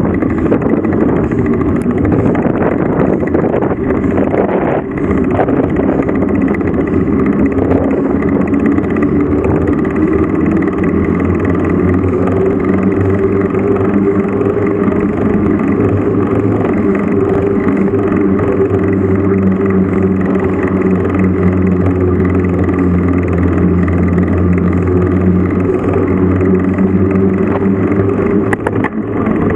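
A motor vehicle's engine running continuously. It is uneven over the first several seconds, then settles into a steady drone at a nearly constant pitch.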